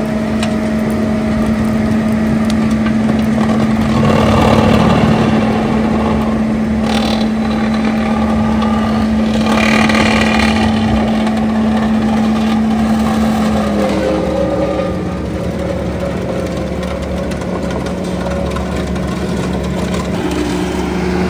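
Skid steer running a CONETEKS 2.13 rotor-head stump grinder, grinding up stumps, roots and soil: a steady engine and drive hum under a rough grinding noise, which grows louder around four and ten seconds in. About fourteen seconds in the hum drops slightly in pitch.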